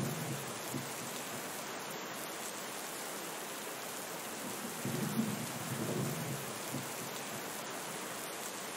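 Steady rain falling. A low rumble of thunder fades out in the first second, and another low roll of thunder comes about five seconds in and lasts about two seconds.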